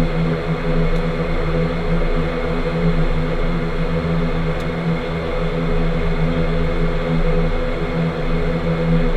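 ATR 72-600's Pratt & Whitney PW127 turboprop engines and propellers running, a steady drone with a few constant low tones, heard inside the cockpit.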